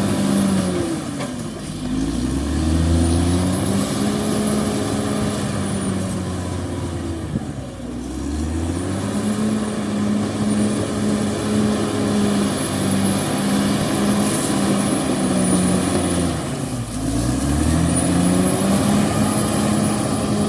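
Diesel engine of a Caterpillar D6R XL bulldozer running hard. Its engine speed drops and climbs back up three times, about two, eight and seventeen seconds in, with a thin high whine riding over it.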